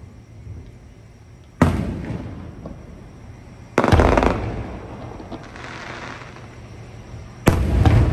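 Aerial fireworks shells bursting three times, a couple of seconds apart, each a sharp bang followed by a long rumbling echo that fades away.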